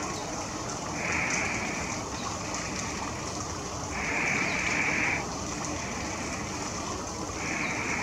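Steady rushing of a flowing stream. A higher hiss swells over it for about a second three times, loudest about four seconds in, with a few faint short chirps above.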